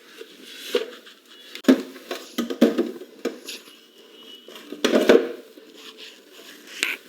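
Plastic fridge shelf or bin being handled and wiped with a cloth: scattered light knocks and clatters with rubbing in between, the loudest knock about five seconds in.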